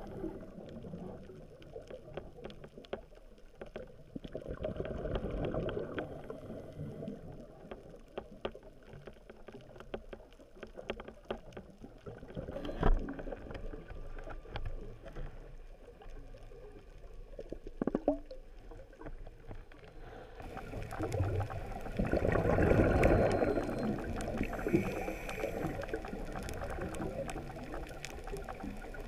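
Muffled underwater sound through a camera housing: low rushing water noise with scattered sharp clicks and knocks, swelling louder twice, most strongly about two-thirds of the way through.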